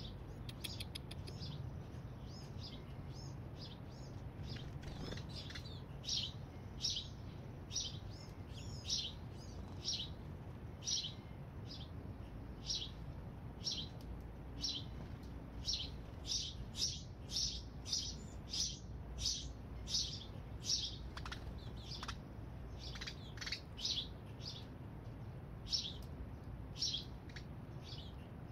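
Baby hummingbird chirping: a long run of short, high chirps, about one every second, coming faster in the middle, as it begs for food from a feeding syringe.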